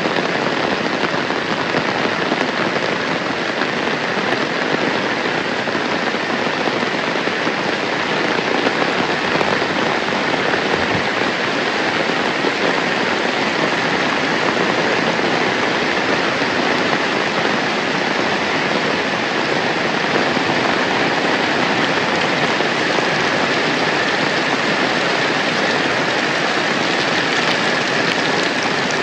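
Heavy rain falling steadily, a dense, even hiss of drops that neither builds nor fades.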